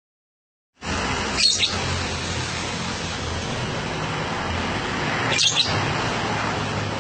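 Lovebird giving two short, high chirps, about a second and a half in and again near the five-and-a-half-second mark, over a steady hiss and low hum. The sound cuts in after nearly a second of dead silence.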